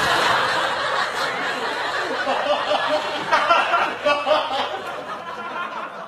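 Studio audience laughing, the laughter dying away over several seconds, with a few louder individual laughs in the middle.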